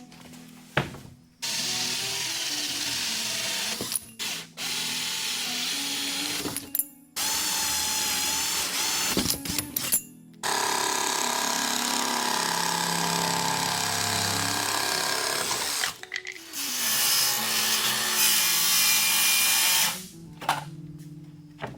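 Power drill running in five long bursts of a few seconds each, with short stops between them; the last burst is the loudest. Background music plays underneath.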